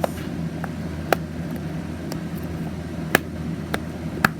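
Small plastic fidget toys being handled, giving about seven irregular sharp clicks and taps, over a steady low hum.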